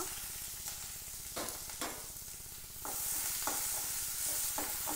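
Tempering of mustard seeds, urad dal, green chillies and curry leaves sizzling in hot oil in a kadai, stirred with a spatula that knocks against the pan about ten times. The sizzle gets louder about three seconds in.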